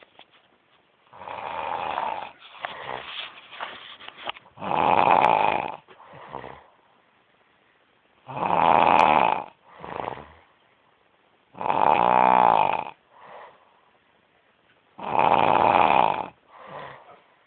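Loud snoring: four long snores, one about every three and a half seconds. Each is followed by a shorter, weaker breath sound, with softer, irregular breathing noises before the first snore.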